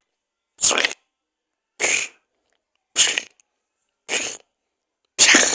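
A person voicing homemade creature sound effects for a gargoyle: four short, raspy bursts about a second apart, then a louder, longer one near the end.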